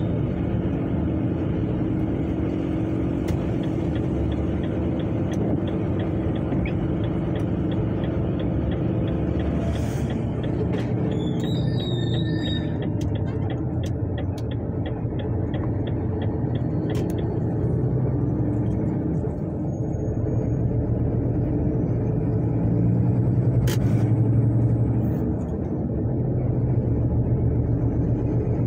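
A road vehicle's engine and drivetrain running steadily as it drives, heard from inside the cab, swelling briefly near the end. Through the first half there is a faint regular ticking, about two to three ticks a second.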